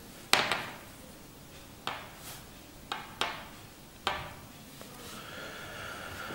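Canvas watch straps with metal buckles knocking and clacking as they are handled and set down on a wooden tabletop: five sharp knocks, the first the loudest. A softer rubbing, scuffing sound follows near the end as a hand slides across the table.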